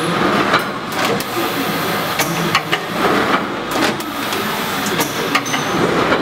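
SP-9201B automatic powder filling and sealing machine running: a steady mechanical clatter with frequent sharp clicks and knocks, about two a second and unevenly spaced, as its stations work the stand-up pouches along the track.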